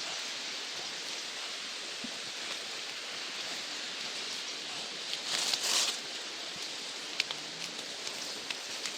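Steady outdoor hiss, like rain or forest ambience, with a brief louder rustle of foliage about five seconds in and a few faint clicks near the end.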